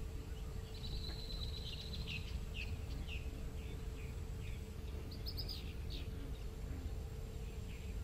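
Wetland ambience: a bird calling in a run of short, falling chirps, over a steady high insect whine and a low background rumble.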